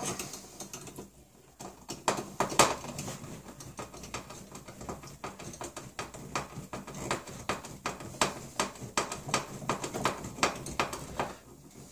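Hand screwdriver turning a small screw into wood to fix a shelf bracket: a steady run of sharp clicks, about two to three a second.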